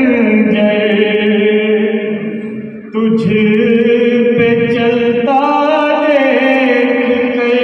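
A man chanting a noha, a Shia lament for Imam Hussain, unaccompanied through a microphone, holding long drawn-out notes. His phrase fades out just before 3 seconds in and a new phrase starts abruptly.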